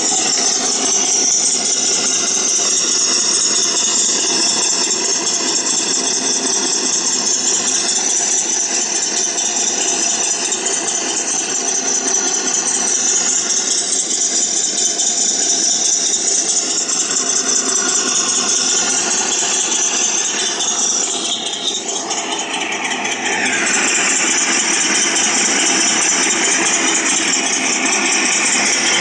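Tiger I tank engine sound effect playing from a cheap MP3 player: a steady engine run with rattle. It drops in level about 21 seconds in, then picks up again.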